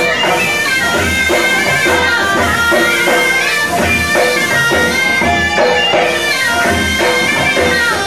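Music: an instrumental passage with a wind instrument playing a gliding melody over a steady drum beat.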